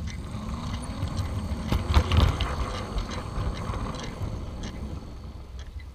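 Garden-scale model locomotive running along its track, with a continuous mechanical rattle from the running gear and scattered sharp clicks over the rails under a low rumble. It is loudest about two seconds in.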